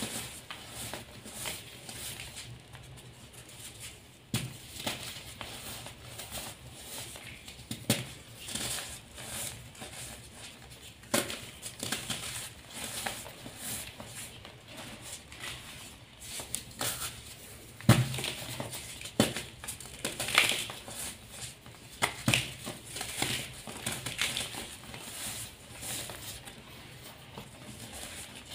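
Yellow-dyed gym chalk crushed and crumbled by hand: a soft powdery rustle broken by irregular sharp crunches as lumps give way, with one especially loud crunch about two-thirds of the way through.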